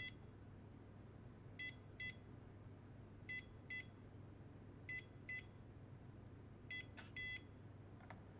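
WeLock Touch61 electronic door lock beeping: four pairs of short high beeps, one pair about every second and a half, with a light click near the last pair.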